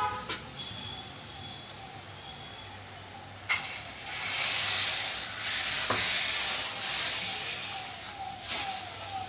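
Thin rice-flour batter hitting a hot tawa: a knock of the bowl at the pan, then a loud sizzling hiss from about four seconds in that fades over the next few seconds as the batter is spread. A faint wavering tone, like a distant siren, runs underneath.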